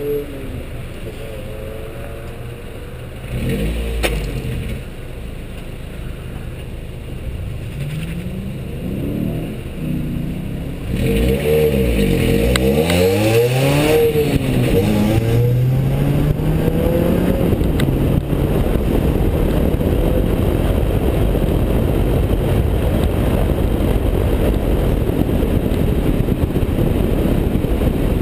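Mazda MX-5 Cup race car's four-cylinder engine, heard from the open cockpit. It idles with a short blip of the throttle. About eleven seconds in it revs up and pulls away, its pitch rising and falling several times as it gains speed, then settles into a steady, loud run under a rushing noise.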